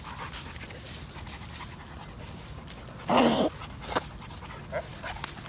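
A dog panting, with one short voiced sound about three seconds in.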